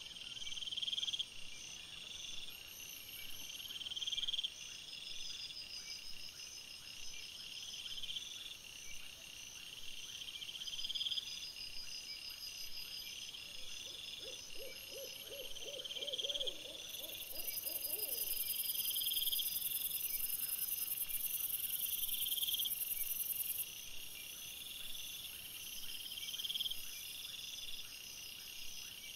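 Night insects chirping in steady, repeating trains of high trills, with a louder, higher, even buzz from about 17 to 23 seconds in. About halfway through comes a short run of low, rapid pulses lasting a few seconds.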